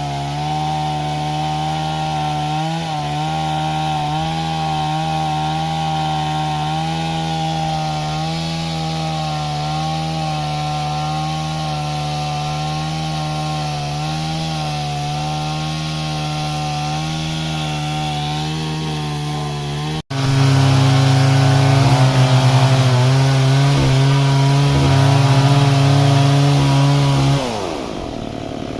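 Stihl MS 382 two-stroke chainsaw running at full throttle while cutting through wood, with a steady note. After an abrupt break about two-thirds of the way through it is louder, then near the end it comes off the throttle and the engine pitch falls away.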